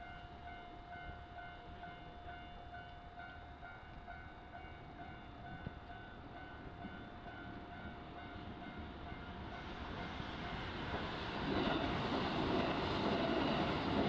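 Japanese level-crossing alarm ringing with a steady, repeating electronic bell. From about ten seconds in, a Kintetsu electric train's rumble of wheels on rail builds and grows loud as it runs across the crossing.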